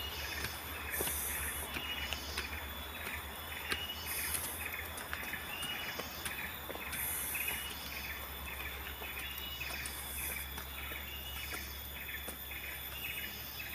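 Forest ambience: a short rising chirp repeats about one and a half times a second, and a high insect hiss swells up every three seconds or so.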